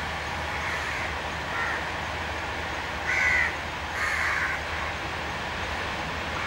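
Harsh bird calls, four short calls with the loudest about three seconds in, over a steady background hum.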